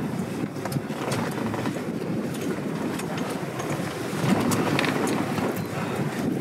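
Steady low rumble of a motor boat under way, with a few light knocks and rustles on deck.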